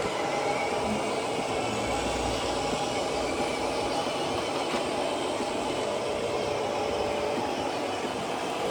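Small electric motors and gearboxes of radio-controlled model construction vehicles running, a steady mechanical whirr.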